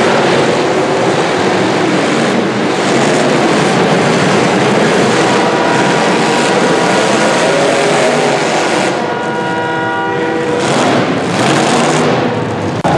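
Demolition derby cars' engines running and revving, loud and continuous. A held pitched sound with several overtones comes in about nine seconds in and lasts over a second.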